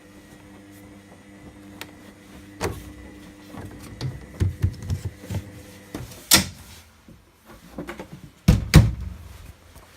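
Laundry appliance humming steadily, the hum stopping partway through, with a run of knocks and clicks, a sharp click and two heavy thumps near the end.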